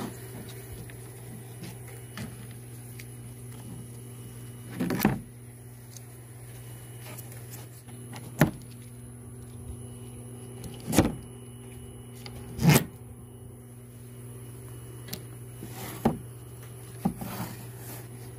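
About seven separate knocks and clunks of electric radiator fans and a radiator being handled on a table, over a steady low hum.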